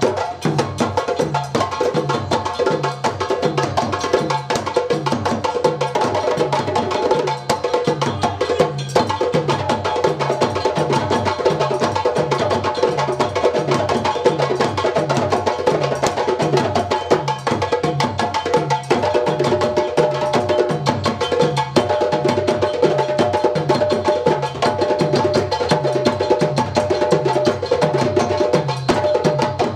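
West African drum ensemble of djembes and stick-played dundun bass drums playing a fast, driving rhythm together. Sharp hand slaps ride over a steady, evenly repeating pulse of deep bass strokes.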